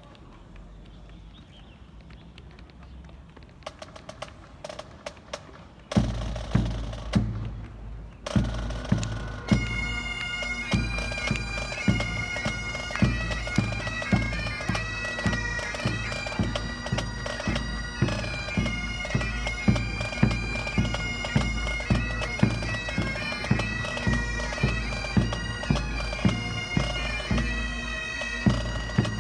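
Pipe band starting up: a few sharp clicks, then drums come in with loud regular beats about six seconds in. Bagpipes strike in a couple of seconds later, their drones sounding steady while the chanters play a tune over the drum beat.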